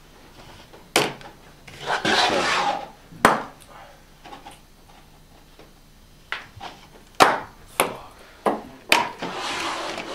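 Ping-pong balls hitting plastic cups and the tabletop in a beer pong game: a string of sharp clicks. There are two rustling scrapes of about a second each, the second while plastic cups are being handled.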